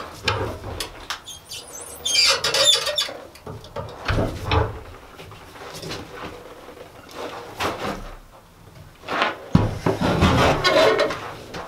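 A hot steel rod held in a leg vise scraping and knocking against itself and the vise as it is bent and pulled round into a knot by hand: irregular scrapes and clanks, with a longer hissing scrape about two seconds in and another cluster near the end.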